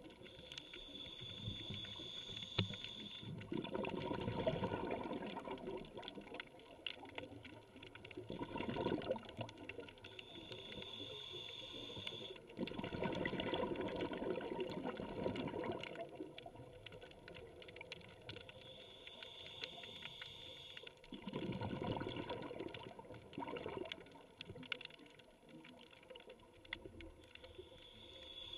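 Scuba diver breathing through a regulator underwater, heard from the camera housing. Each breath is a hissing inhale through the demand valve, followed by a few seconds of bubbling exhaust bubbles, repeating about every nine seconds.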